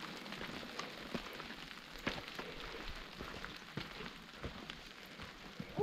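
Steady rain falling, with many irregular drops striking close by. A short falling voice-like sound cuts in at the very end.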